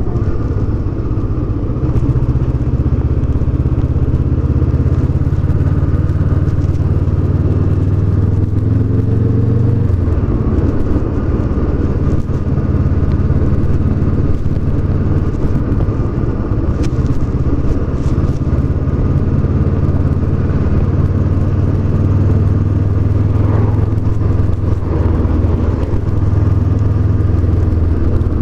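Honda CB500X's parallel-twin engine running under way on a ride. Its pitch climbs for a few seconds, then drops suddenly about ten seconds in, as on a gear change or roll-off, and after that it holds steady.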